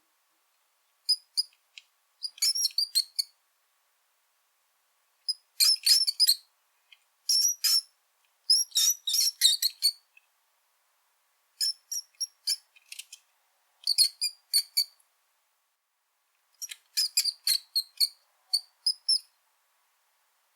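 Brown rat squeaking: clusters of short, very high-pitched squeaks, each cluster lasting about a second, separated by silent pauses of one to two seconds.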